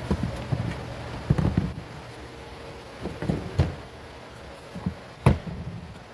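Rear seat of a Kia Picanto being pushed back into place: a series of thumps and knocks, with a sharp latch click about five seconds in.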